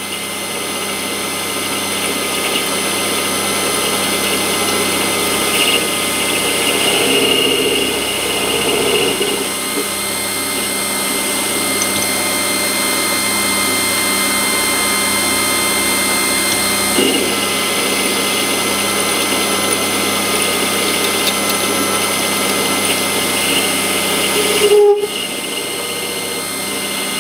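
Warco WM180 mini lathe running, its motor and drive giving a steady whine while the tool takes a turning cut along the spinning workpiece. The sound drops out very briefly near the end.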